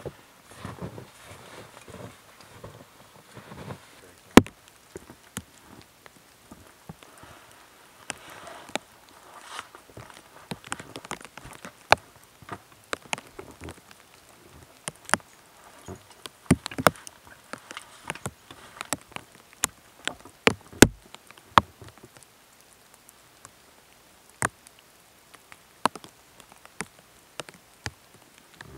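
Footsteps crunching in snow for the first few seconds, then scattered sharp clicks and taps at irregular intervals, the loudest a few single knocks at about 4, 17 and 21 seconds in.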